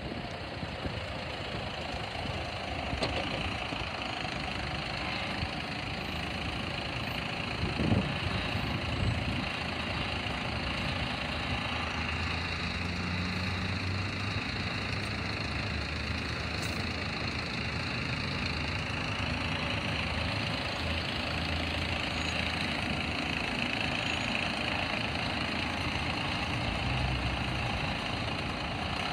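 Diesel engines of garbage trucks running as they drive past and turn in, with a steady low engine drone from about halfway that grows as a side-loader truck pulls up close near the end. A brief louder sound about eight seconds in.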